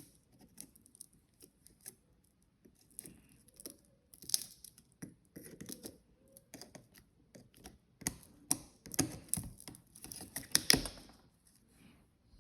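Irregular clicks, taps and rustling of an object being handled close up, busier and louder in the last few seconds.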